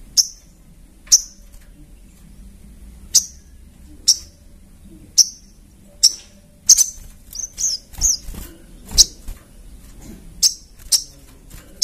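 A caged sogok ontong (a spiderhunter) calling: short, sharp high chips about once a second, with a quicker run of calls in the middle.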